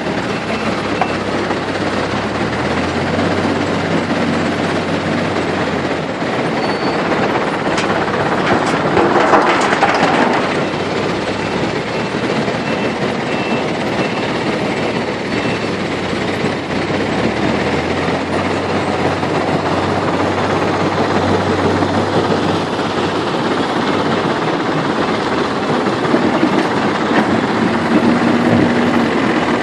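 Diesel engines of a backhoe loader and dump truck working steadily, the engine note rising and falling, with a louder burst of clatter lasting a couple of seconds about a third of the way in.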